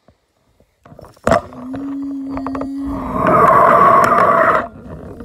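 Handling noise from a phone camera being moved and set down on a floor mat. There is a sharp knock, then a steady low tone, then a loud scraping rustle that stops abruptly.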